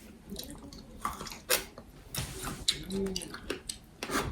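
Close-mic chewing and wet mouth sounds of someone eating cherries: a scatter of soft clicks and smacks, with a brief hummed voice about three seconds in.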